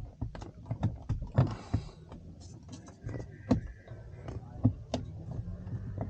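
Irregular clicks, taps and knocks of hands working plastic trim and the rear-view mirror mount, with a low steady hum underneath.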